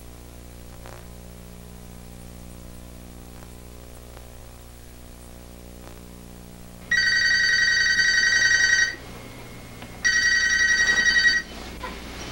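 A steady low hum, then a telephone's electronic ringer trilling twice: two rings of about two seconds each, a second apart, starting about seven seconds in.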